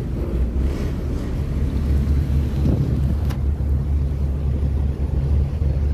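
Steady low rumble of a marine diesel engine, with wind buffeting the microphone. A single sharp click about three seconds in.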